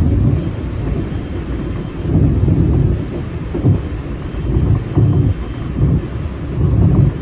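A 521-series electric train running along the track, heard from inside the front of the car: a steady low rumble with louder low thuds swelling up every one to two seconds.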